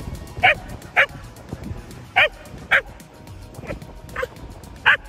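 Scottish terrier barking: short, sharp barks in quick pairs about half a second apart, six or seven in all, the pair near the middle fainter.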